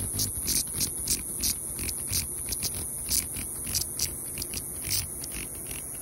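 Cicadas buzzing: a steady high-pitched drone with irregular louder pulses, about two or three a second.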